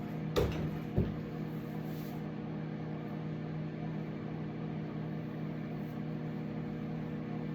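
Microwave oven running with a steady hum. Two short knocks come in the first second.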